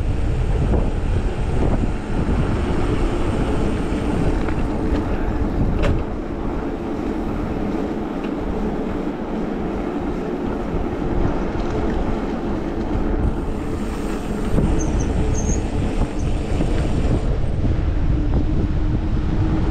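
Wind rushing over the microphone of a camera riding on a moving mountain bike, a dense low rumble that eases for a few seconds in the middle, with a steady hum beneath it.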